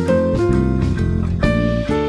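Instrumental background music led by plucked guitar over a bass line, with notes changing several times a second.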